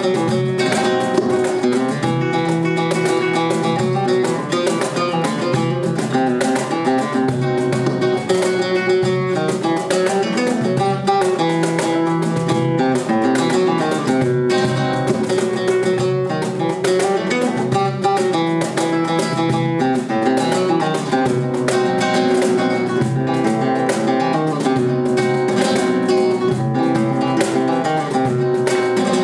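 Flamenco guitar and cajón playing bulerías: fast plucked runs and strums on the guitar over hand slaps on the cajón.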